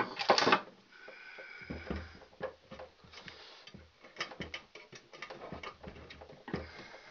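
Hands working wire and small metal parts at an electrical disconnect box: a short clatter at the start, then a run of irregular light clicks and taps.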